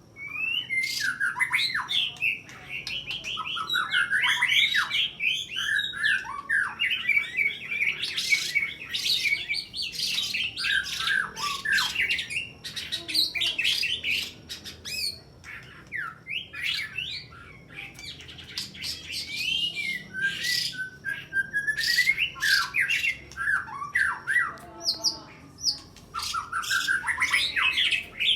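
White-rumped shama singing a fast, varied song of sharp whistles, trills and abrupt notes, filled with mimicked calls of small birds, in the aggressive fighting style.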